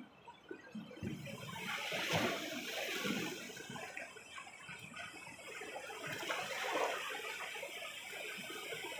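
Sea waves washing and splashing against shoreline rocks, surging in several swells.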